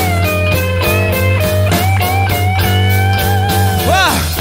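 Blues band playing: a lead guitar fill of bent notes over bass and drums between sung lines, with a wide swooping bend near the end.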